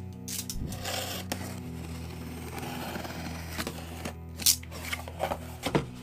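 Cardboard shipping box being opened by hand: a scraping stretch of about three seconds, then several sharp taps and knocks as the box and its contents are handled. Quiet background music with steady low notes plays underneath.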